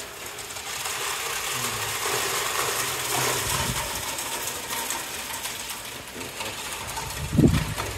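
Hailstorm: a dense, steady clatter of falling hailstones. A loud, low thump near the end.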